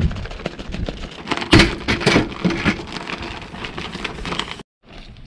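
Plastic zip-top bag being shaken with flour and seasoning inside: dense crinkling and rustling of the plastic, with a brief sudden break near the end.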